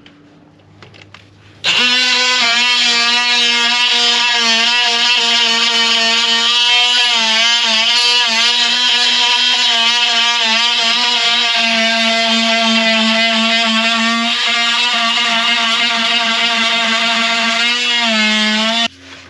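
Small handheld cordless rotary grinder running at high speed on rusty steel, a steady high-pitched whine over a hiss of grinding. Its pitch sags slightly now and then as it is pressed into the metal. It starts about two seconds in and cuts off just before the end.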